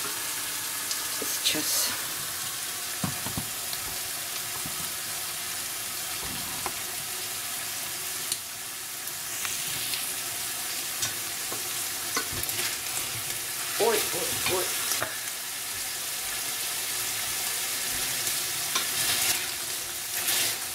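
Beef cubes sizzling in hot sunflower oil in a stainless steel pan, being seared to seal the meat. A wooden spatula scrapes and knocks against the pan in short strokes at several points as the meat is stirred.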